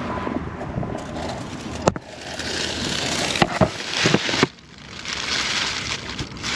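Handling noise of a camera pushed into a narrow shelter tunnel: rustling, scraping and crackling against the tunnel's surfaces, with a few sharp knocks and a short drop in level near the end.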